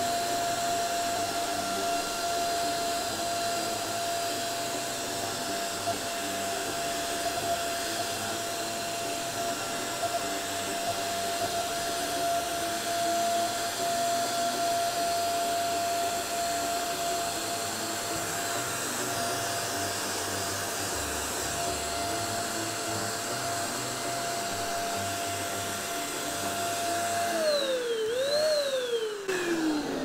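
Small handheld vacuum cleaner running steadily with a high motor whine, drawing dust out of a fabric carbon air-purifier filter through its hose and brush nozzle. Near the end it is switched off: the whine drops, picks up briefly, then falls away as the motor winds down.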